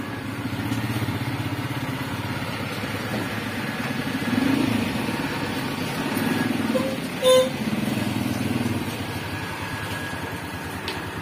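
Small motorcycle engines running and revving up and down several times, with one short horn beep about seven seconds in.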